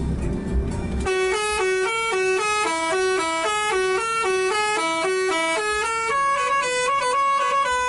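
A bus's Basuri 'telolet' musical air horn, cutting in about a second in and playing a quick tune of stepped notes over a low engine and road rumble.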